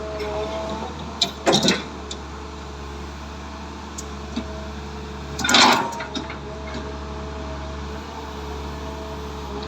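Komatsu PC200 excavator's diesel engine idling with a steady low hum and a faint steady whine, broken by two short loud noises, one about a second and a half in and a longer one about five and a half seconds in.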